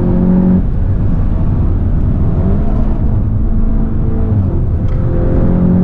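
Seat Leon Cupra 290's turbocharged 2.0-litre four-cylinder engine under way at track speed, heard from inside the cabin over steady tyre and road noise. The engine note breaks off about half a second in, climbs slowly in pitch, breaks again around four and a half seconds, and then holds steady.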